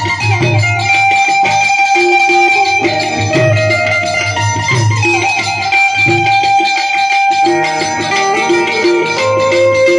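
Live bhajan music: harmonium and keyboard hold a steady melody over a rhythmic tabla beat.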